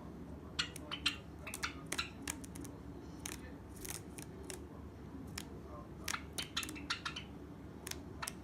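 Small cage finches making short, clipped calls in quick irregular clusters, the busiest stretches a little after the start and again about two-thirds of the way through.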